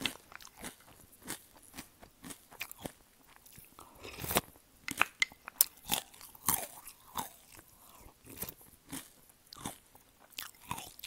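Close-miked chewing of crunchy cereal: sharp crunches at an irregular pace, several a second, with mouth sounds between them.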